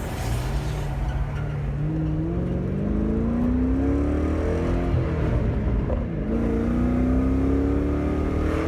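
2001 Ford Mustang with a new exhaust accelerating. The engine note climbs for several seconds, drops with a gear change about six seconds in, then climbs again.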